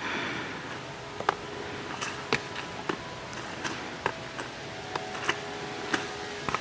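A series of irregular sharp clicks and ticks, roughly two a second, over a faint steady hum.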